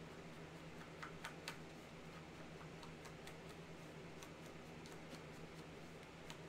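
Faint, irregular light ticks and dabs as a foam ink applicator is pressed and rubbed around the edge of a die-cut scalloped cardstock circle, over a steady low electrical hum.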